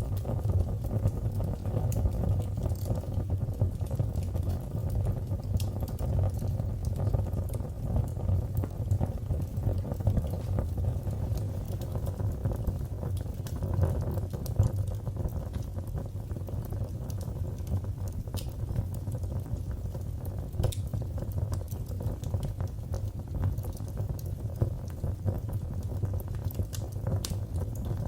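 Wood fire burning in a fireplace: a steady low rumble of the flames with frequent small crackles and pops scattered throughout.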